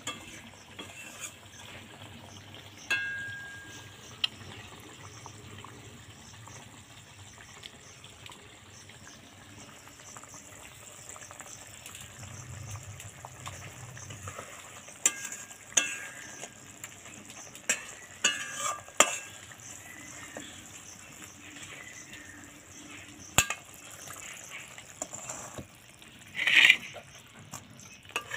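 A spatula scraping and knocking against a metal kadai as a thick fish curry is stirred, with a few sharp clinks and one louder scrape near the end, over a faint steady simmer.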